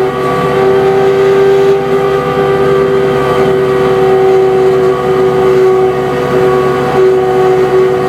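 Diesel locomotive engine of a 15-inch gauge ride-on railroad running steadily under load on the climb up a grade. A strong, even whine runs through it without change of pitch.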